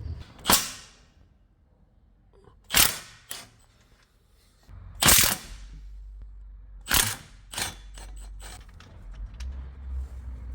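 Hand tools working on car hardware: about six short, sharp mechanical bursts spread over several seconds, then a run of faint ratchet-like clicks near the end. A low hum comes in about halfway through.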